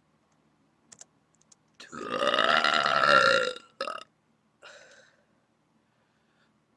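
A person belching on purpose: one long, loud burp of nearly two seconds, then a short second burst and a fainter, briefer sound about a second later.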